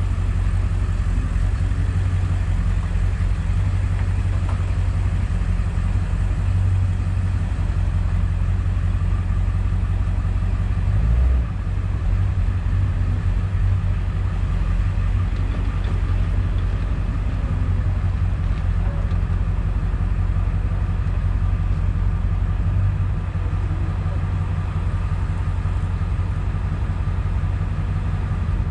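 Ford F350 Super Duty pickup's engine running steadily at low revs as the truck manoeuvres slowly, a deep continuous rumble, with a brief low bump about eleven seconds in.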